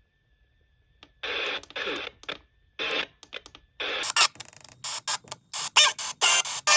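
Radio broadcast audio chopped into short fragments that start and stop abruptly with silent gaps between them, as when a receiver is tuned from station to station. The fragments come faster and shorter over the last few seconds.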